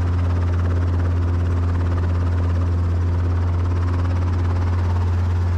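Light helicopter's engine and rotor drone heard from inside the doors-off cockpit: a loud, steady low hum with a few steady higher tones, as it hovers just above a concrete pad.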